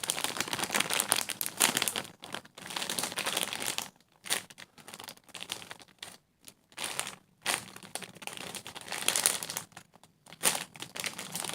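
Squishy foam toy being squeezed and handled close to the microphone: irregular crackling and crinkling with a few short pauses.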